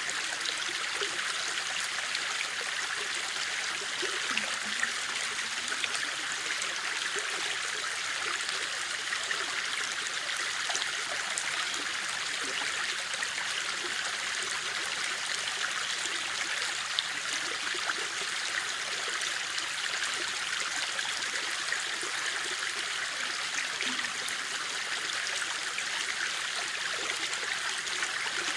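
A stream or small river running over rocks, a steady rushing and trickling of water.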